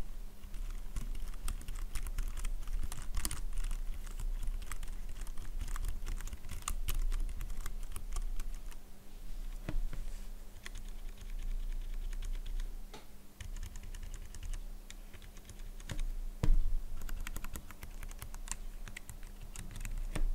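Keychron K3 ultra-slim low-profile mechanical keyboard being typed on: a continuous, irregular run of quick key clicks, with a couple of louder strokes about sixteen seconds in.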